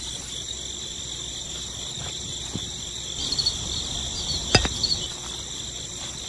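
Insects, likely crickets, trilling steadily in a high continuous buzz with a few pulsed chirps. A single sharp click comes about four and a half seconds in.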